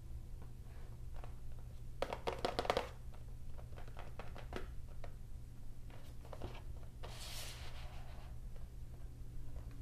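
Hands handling a cardboard retail box: scattered taps and clicks on the cardboard, a cluster of rustling clicks about two seconds in, and a brief rubbing hiss about seven seconds in as the box is turned onto its side. A steady low hum lies underneath.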